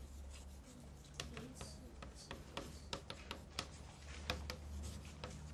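Chalk writing on a blackboard: faint, irregular taps and clicks of the chalk striking the board, a few a second.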